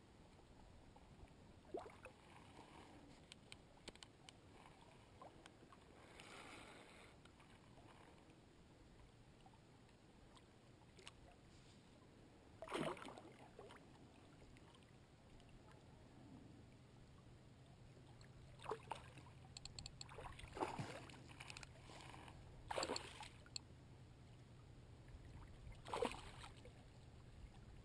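Mostly near silence, broken by a handful of short, sudden faint sounds scattered throughout, with a faint low hum coming in about midway.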